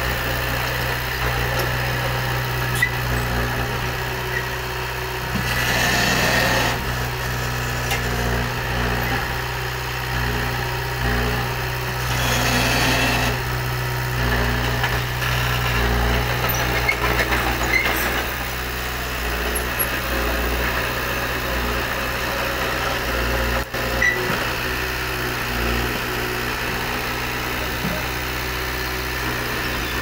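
Diesel engine of a Komatsu D20P small crawler bulldozer running steadily under work, with two brief louder, noisier spells about six and twelve seconds in.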